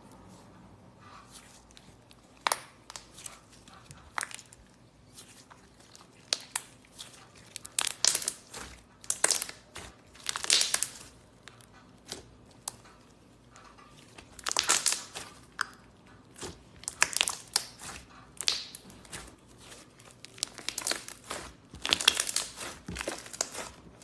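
Slime being squeezed and poked by hand, giving irregular crackling, clicking and popping in short bursts with brief quiet gaps between them.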